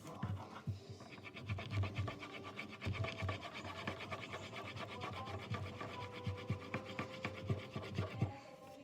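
Colouring on paper: a drawing tool scratching with quick, even back-and-forth strokes as an area is filled in, with a few soft knocks against the table.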